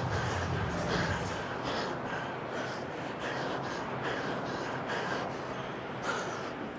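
Hard, fast panting of a man sprinting on an air bike, over the steady whoosh of the bike's fan.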